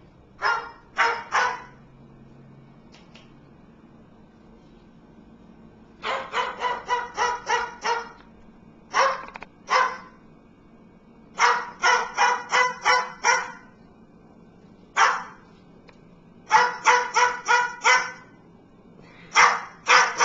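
Pet bird mimicking a dog's bark: short, high-pitched barks in quick runs of several a second, broken by pauses of a few seconds.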